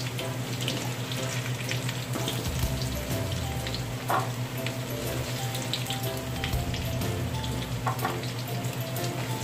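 Diced potatoes and carrots sizzling in hot oil in an aluminium wok, fried until done, with a wooden spatula now and then scraping and knocking against the pan. Soft background music runs underneath.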